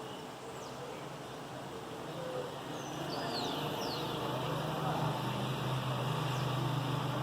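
Morning city street ambience: a low engine hum of passing traffic grows louder about halfway through, with a few short, high, downward-sliding bird chirps over it.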